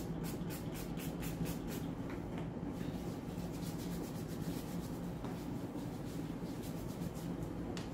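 Hands rubbing together with alcohol hand rub during hand hygiene: a run of quick, irregular swishing strokes of palm on palm and between the fingers.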